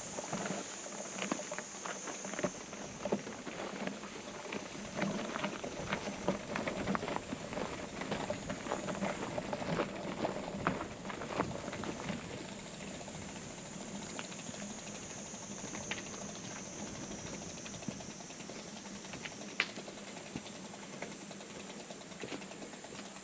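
Summer cicadas droning steadily in a forest, with irregular crunching footsteps on a dirt and gravel path, busier in the first half.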